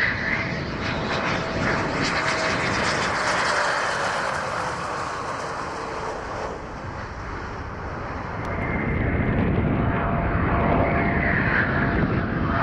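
Military jet engine noise: a broad, loud jet rush with a whine over it and a slowly falling tone in the first half. It eases off a little midway and swells again near the end.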